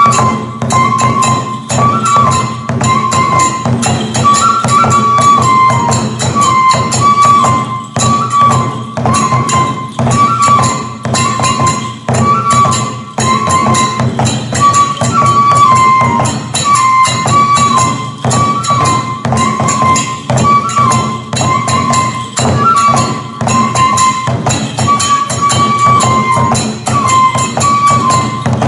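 Kagura accompaniment: a bamboo flute plays a short repeating phrase over fast, steady drum beats and the jangle of small hand cymbals.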